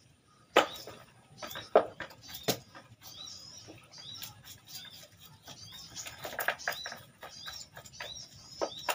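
Kitchen knife knocking and scraping on a round wooden chopping block while small papuyu (climbing perch) are cleaned, with sharp knocks about half a second, a second and three quarters, and two and a half seconds in, then lighter taps and scrapes.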